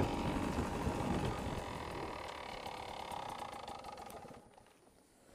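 Beta 300 RR two-stroke single-cylinder engine running low on the byway. It fades and then drops away abruptly about four seconds in.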